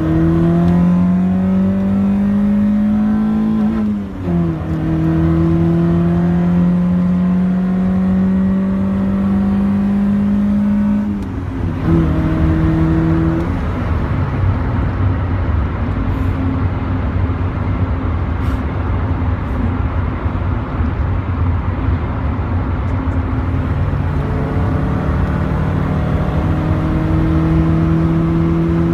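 Honda Prelude engine pulling under load, its pitch climbing steadily, dropping suddenly at a gear change about four seconds in and climbing again. About eleven seconds in it falls back to a low rumble for roughly ten seconds, then climbs once more near the end.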